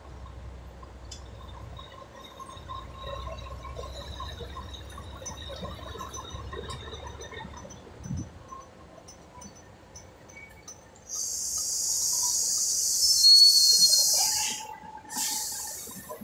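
Container truck's diesel engine rumbling low as it rolls slowly, then about eleven seconds in a sudden loud hiss of compressed air lasting about three seconds, followed by a second short hiss near the end: the truck's air brakes venting.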